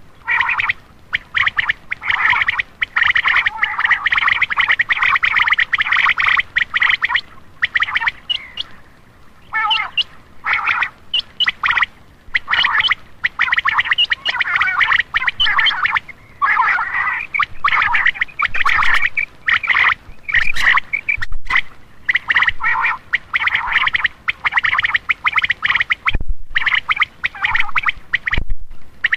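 Common quail calls played as a hunting lure: bursts of rapid, rattling chatter lasting a few seconds each, repeated with short pauses between.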